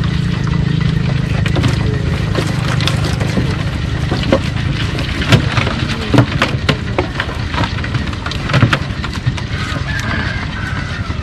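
A motor running steadily, with a run of irregular sharp knocks and clatter through the middle.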